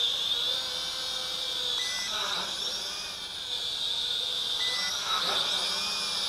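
Small toy quadcopter's motors whining, the pitch wavering up and down as it is throttled while hovering and moving low over the ground. Two short, flat beeps sound partway through.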